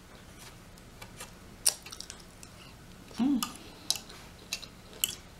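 Close-up eating sounds: scattered wet mouth clicks and smacks while chewing chicken, with a short hummed "mm" about three seconds in.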